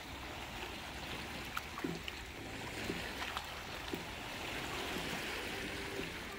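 Small waves lapping and trickling among shoreline rocks, a steady watery wash with scattered light clicks and splashes.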